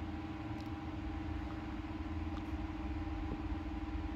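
Steady low mechanical hum with a constant tone running under it, and two faint clicks, one about half a second in and one about two and a half seconds in.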